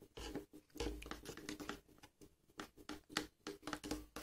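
Steel spoon stirring a gritty mix of sugar, shampoo and water in a plastic bowl: quick, irregular scrapes and light clicks of the spoon against the bowl.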